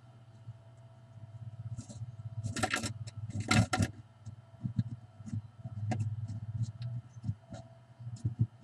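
Blue tit scrabbling inside a wooden nest box: two loud scratchy rustles around two and a half and three and a half seconds in as it climbs out of the nest toward the entrance hole, then scattered light taps and scrapes of its claws on the wood. A steady low electrical hum runs underneath.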